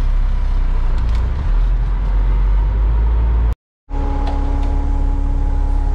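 Kenworth concrete mixer truck's diesel engine running steadily, a deep rumble heard from the cab, broken by a brief silence a little past halfway.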